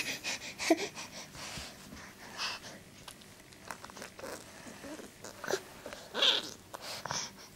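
Close handling noise from a toddler grabbing and mouthing a camera: scattered rubbing, clicks and crinkly knocks right on the microphone, mixed with her breathing and small mouth sounds, with a louder breathy sound about six seconds in.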